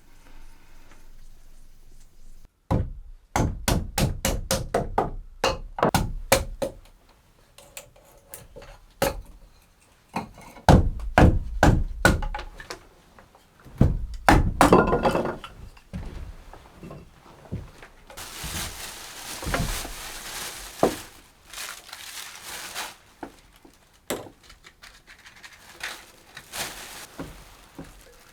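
Rapid runs of sharp knocks and thuds in three bursts, then a few seconds of hissing noise, with a few faint knocks near the end.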